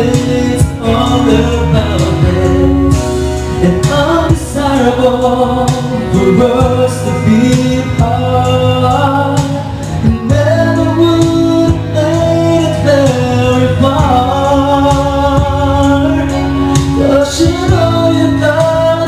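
A man singing over backing music, holding long notes that waver.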